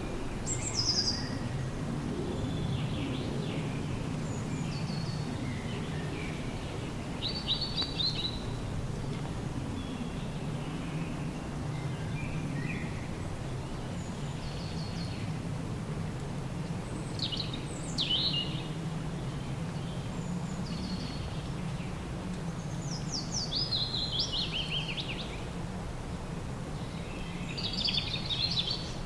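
Songbirds singing in short phrases every few seconds, some of them quick falling trills, over a steady low rumble.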